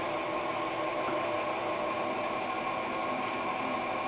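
KitchenAid stand mixer's motor running steadily, turned up in speed, driving its meat grinder attachment as pork is pushed through the grinder. A constant, even hum with no change in pitch.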